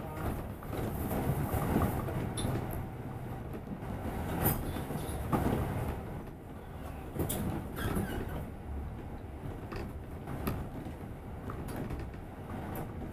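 Cabin noise of a moving double-decker bus heard from the upper deck: a steady low engine and road rumble with scattered clicks, rattles and knocks.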